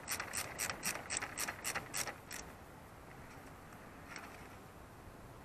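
A socket ratchet clicking about ten times in quick succession, roughly four clicks a second, as a 10 mm nut is turned down on the negative battery terminal clamp; it stops after about two and a half seconds, and one faint click follows later.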